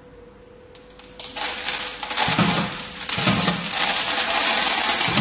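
Granular raw material pouring through a metal detector/separator and out of its steel discharge pipe into a bucket: a loud rush of rattling granules that starts about a second in, with a few heavier thuds. A faint steady tone from the separator sounds underneath.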